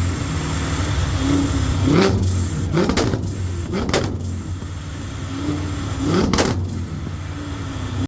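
Sports car engine revved hard in short blips over a steady idle. Sharp exhaust cracks at the top of the revs, about two, three, four and six seconds in.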